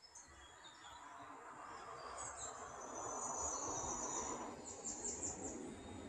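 Forest ambience: a high insect trill starts about two seconds in and holds for a couple of seconds, followed by a quick run of high chirps. Underneath is a soft rushing noise that swells toward the middle and eases off near the end.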